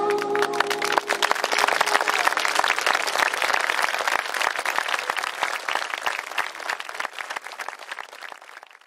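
Audience applauding, over the last held notes of singing that stop about a second in; the clapping then fades out near the end.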